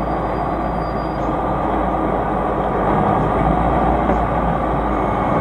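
Logging truck's engine and road noise: a steady, loud rumble as the truck crawls along a rough, waterlogged stream-bed track.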